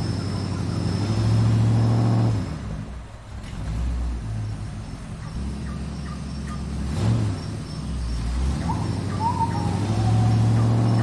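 Electric motor and gearing of a scale RC rock crawler whining in stop-start bursts as it creeps over rocks and up a slope. Birds chirp briefly near the end.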